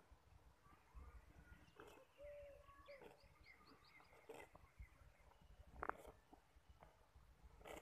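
Faint sounds of a water buffalo grazing: a few short, sharp snaps as it tears grass, spaced irregularly. Small birds chirp in the background, with a quick run of high notes about three seconds in.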